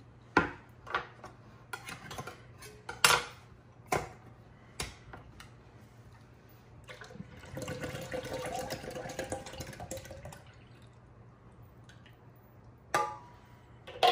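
Several sharp clinks and knocks of a can and utensils against a blender jar, then from about seven seconds in a few seconds of thick sweetened condensed milk pouring from the can into the jar. One more knock comes near the end.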